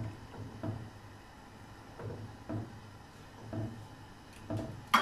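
Silicone spatula stirring rice in a pan of water, making soft knocks and swishes against the pan at irregular strokes, about six in five seconds, with a sharper tap near the end.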